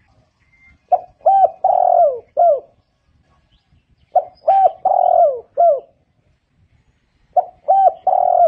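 Spotted dove cooing its song. Phrases of about five notes, each with a longer note in the middle and a downward-falling last note, repeat about every three seconds: two full phrases, and a third starting near the end.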